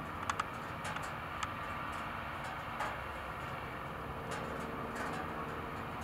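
A tractor engine running steadily as it pulls a plow, heard from across the field, with several short gull calls scattered over it.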